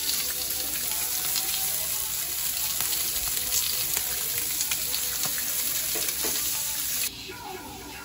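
Slices of pork frying in a nonstick pan: a steady sizzle with fine crackling pops. It cuts off abruptly about seven seconds in.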